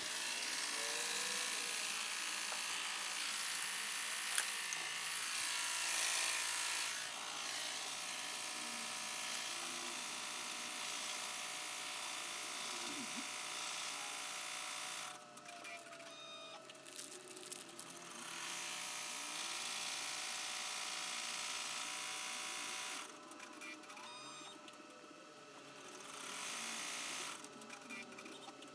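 Baby Lock Enterprise multi-needle embroidery machine stitching out a tack-down placement outline, a steady fast buzz. It stops twice, about fifteen seconds in and again about twenty-three seconds in, for a few seconds each time, then starts stitching again.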